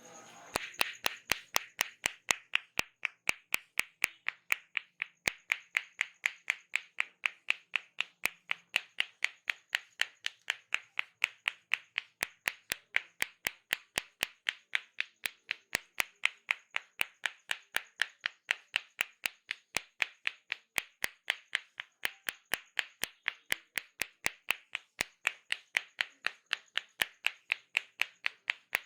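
Hands clapping in a steady, even rhythm of about four sharp claps a second: the percussive hand-clapping strokes of an Indian head massage.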